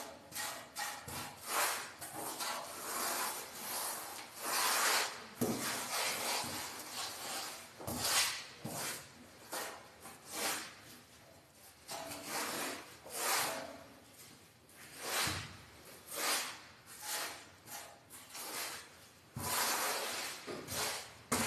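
Plastering tool scraping and rubbing across a wall of fresh fine finishing plaster, in repeated irregular strokes about a second apart.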